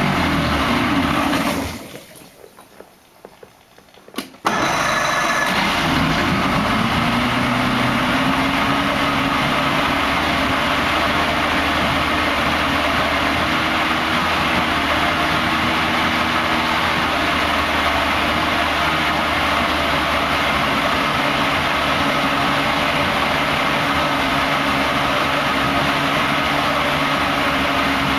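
1979 Johnson 100 hp two-stroke V4 outboard idling while it warms up after a cold start. About two seconds in the engine sound drops away. About four seconds in the engine is suddenly running again, dipping briefly before it settles into a steady idle.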